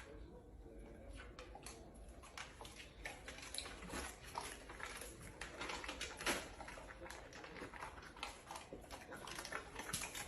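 Faint animal sounds: many soft clicks and pattering, with a few short squeaks.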